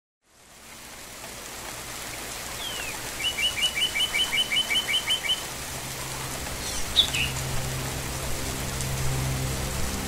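Steady rain hiss fading in, with birds chirping over it: a quick run of about a dozen short chirps, five or six a second, starting about three seconds in, and a few more calls near the seven-second mark. A low steady tone comes in during the second half.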